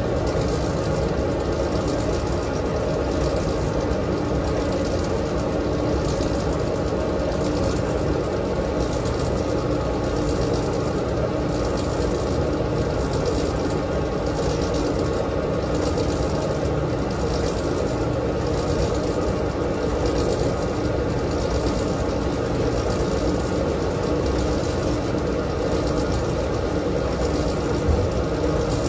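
Dexter T900 front-load commercial washer running mid-cycle: a steady motor hum and drum noise, with a faint swish about once a second and one small click near the end.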